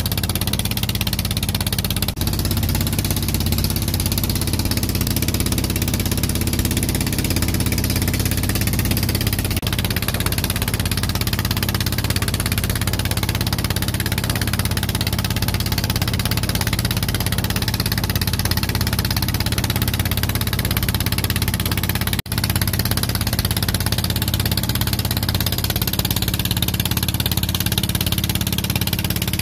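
A small wooden fishing boat's engine running steadily under way, with the rush of water along the hull and wind noise over it.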